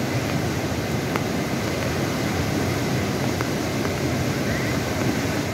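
The Teesta River in flash flood, fast muddy water rushing in a steady, low, unbroken roar.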